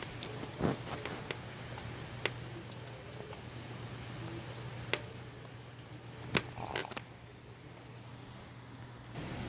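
Steady hiss of rain and gusting wind, with about seven scattered sharp ticks and a low steady hum underneath. The hiss eases a little after about seven seconds and picks back up near the end.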